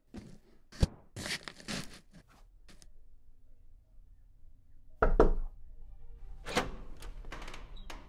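A small cardboard box being grabbed and handled: a sharp thump, then scraping and tearing cardboard noises. After a pause, a second run of knocks and rustling.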